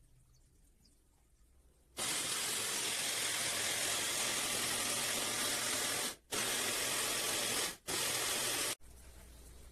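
A steady, even hiss starts abruptly about two seconds in, breaks off briefly twice, and drops to a faint hiss near the end.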